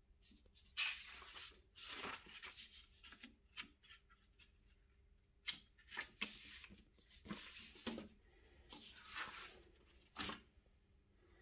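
Faint, irregular rustling and rubbing sounds in short bursts, over a low steady hum.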